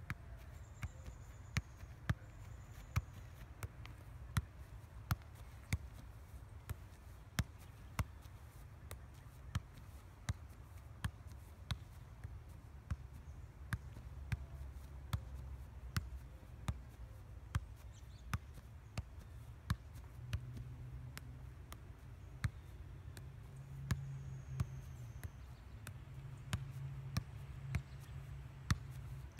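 A soccer ball being juggled: a steady run of sharp taps, about one or two a second, as the ball is kicked and headed, over a low steady rumble.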